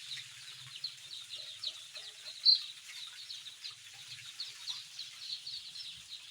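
A crowd of day-old chicks peeping, many short high chirps overlapping without a break, with one louder peep about two and a half seconds in.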